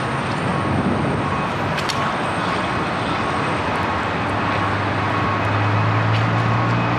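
Vehicle engine running steadily under a wash of road and traffic noise, its low hum getting louder near the end.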